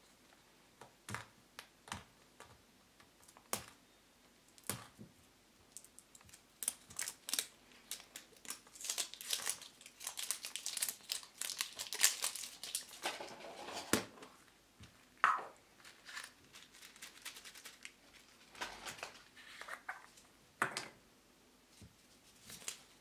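A plastic surprise egg being handled and unpacked by hand: scattered clicks of the plastic shell, then several seconds of dense crinkling of plastic packaging around the middle. Lighter rustling and clicks follow as a folded paper sticker sheet is opened.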